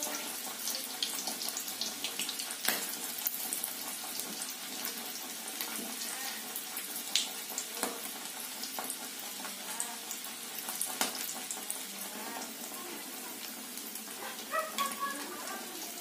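Whole quail deep-frying in hot oil in a wok: a steady sizzle with scattered pops and crackles.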